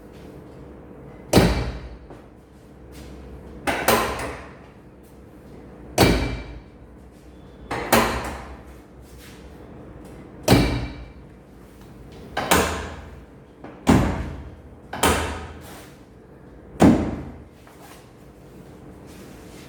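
A series of about nine sharp knocks or slams, one every one to two seconds, each ringing out briefly.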